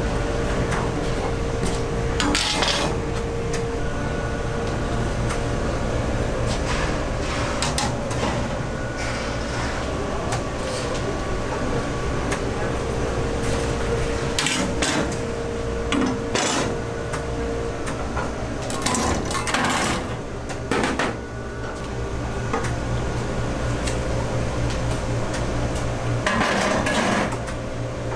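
Knives, a wooden mallet and other tools clinking and knocking against a stainless-steel table and shelves as they are handled and set down, at irregular moments over a steady background hum.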